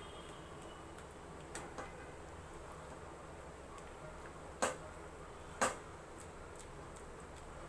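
A spatula knocking against a stainless steel kadai while thick halva is stirred: two faint clicks about a second and a half in, then two sharper, louder knocks about a second apart past the middle, over a faint steady background hum.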